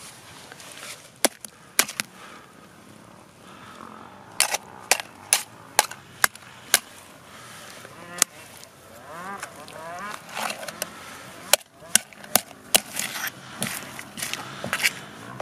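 Ostrich eggshell cracking and snapping in a string of sharp cracks, a few at a time, as it is broken off by hand and struck with a hammer to free the lead cast inside. A brief wavering squeak about two-thirds through.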